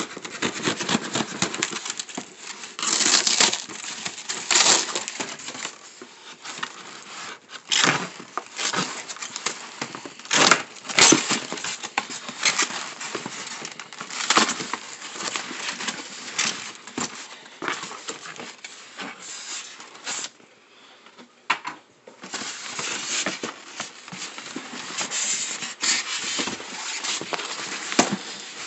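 Cardboard box being cut with a knife and torn open, and its foam packing pulled about: crackling, tearing and scraping in uneven bursts, with a short lull about two-thirds through.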